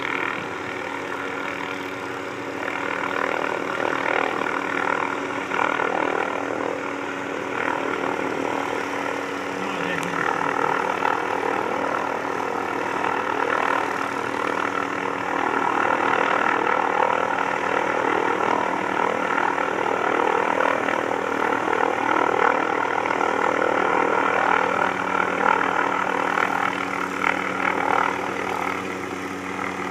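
Helicopter running steadily, the turbine and rotor making a continuous drone that grows somewhat louder about halfway through.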